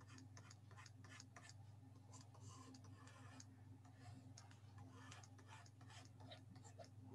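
Near silence: faint scattered ticks and scratches of a stylus drawing, over a low steady electrical hum.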